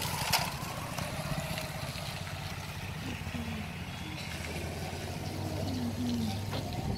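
Steady low rumble, with a sharp click about a third of a second in and a fainter tap near the end.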